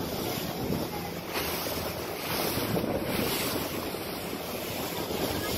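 Wind buffeting the microphone over the steady wash of sea water around a boat under way, with the gusts swelling and easing.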